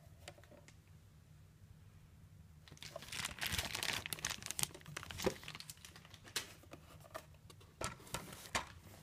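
Packaging crinkling and rustling while a box's contents are handled and unpacked, starting about three seconds in and loudest for the next two seconds, then a few scattered clicks and taps.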